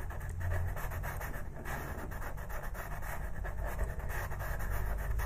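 Pastel pencil scratching across textured pastel paper in many quick, short shading strokes.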